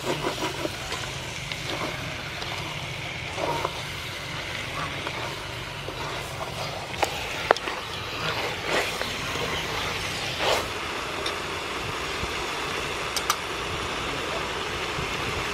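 Chicken pieces coated in curry paste sizzling in an aluminium pot as a wooden spoon stirs them, with a few sharp knocks of the spoon against the pot. A steady low rumble runs underneath.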